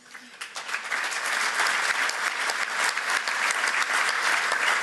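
Audience applauding, building up over the first second and then clapping steadily.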